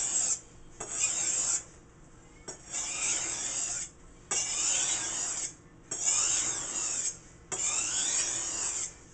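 A kitchen knife blade drawn again and again across a sharpener in even strokes, each lasting about a second, with a short pause between strokes. The blade is held at about a 20-degree angle so that each stroke keeps the same deep pitch, a sign of an even, consistent edge angle.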